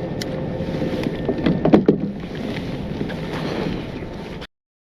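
Wind on the microphone and choppy water slapping against a kayak, with a few knocks and clunks around the boat between one and two seconds in. The sound cuts off suddenly near the end.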